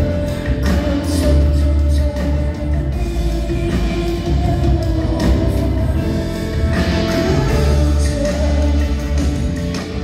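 A live band playing: grand piano, drum kit and electric bass under a woman's singing voice, heard from the audience.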